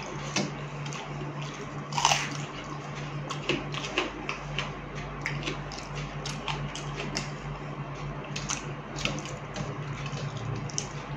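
Hand squishing and scooping fermented rice in its soaking water in a steel bowl, with wet chewing and slurping as mouthfuls are eaten; a quick run of short wet clicks and smacks, one louder slurp about two seconds in.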